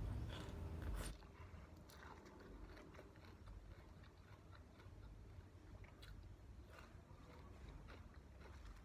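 A person chewing and biting food, louder in the first second, then faint chewing and small clicks.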